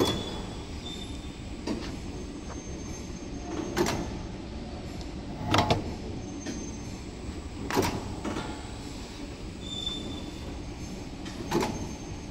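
Paper edge-board (corner protector) making machine running with a steady low mechanical rumble, broken by five loud sharp knocks a few seconds apart.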